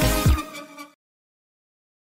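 Background electronic music with a steady beat that stops abruptly about half a second in, its last notes dying away within the first second, followed by dead silence.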